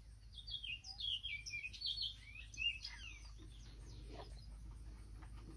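Songbirds chirping: a quick run of high, twittering chirps during the first three seconds, then fainter scattered chirps.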